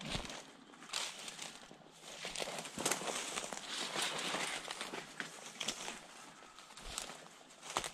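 Footsteps pushing through dry eucalyptus leaf litter, bracken and sticks: irregular rustling with short sharp twig snaps.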